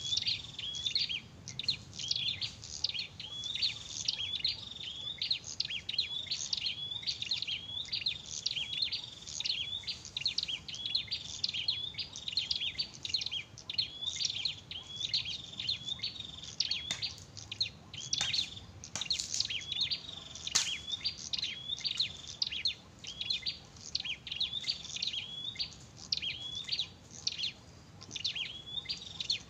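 Prinia (prenjak) calling loudly and without pause: short, sharp chirping notes repeated in a quick, steady rhythm, with a few faint clicks about two-thirds of the way through.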